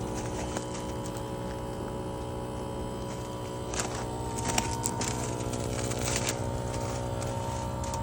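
Bosch air-conditioner outdoor unit running in cold weather: a steady hum with several steady whining tones held over it. A cluster of clicks and crackles comes around the middle.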